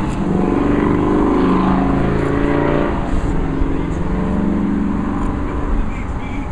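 A motor engine running steadily in the background, a pitched hum that is strongest in the first half, with a few faint scrapes.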